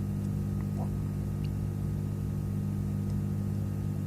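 A steady low hum, with a few faint small ticks over it.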